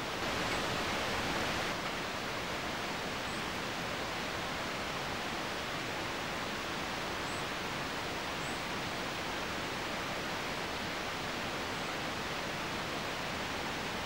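Steady, even hiss of background noise, a little stronger for the first two seconds, with a few faint high chirps now and then.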